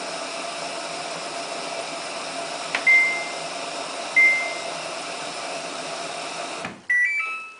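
Samsung WF8804RPA washing machine control panel beeping twice as buttons are pressed over a steady hum. Near the end the hum cuts off abruptly and the machine plays a short tune of quick beeps at several pitches as it switches off.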